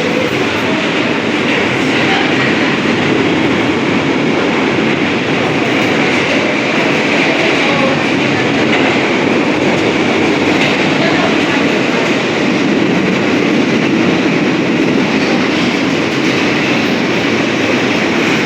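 New York City Subway J train running on the rails, a steady, loud noise of wheels and car body with no sharp events.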